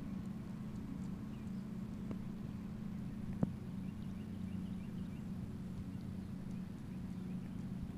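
Steady low machine hum, with a single sharp click about three and a half seconds in.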